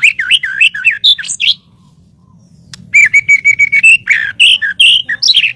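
White-rumped shama (murai batu) singing loud, varied whistled phrases. A quick run of sweeping notes breaks off about a second and a half in. After a pause, a second phrase opens with a fast string of even repeated notes and goes on into rising and falling whistles.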